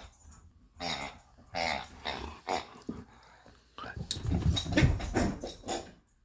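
A dog growling and whining in several short calls, loudest in a longer stretch from about four to six seconds in.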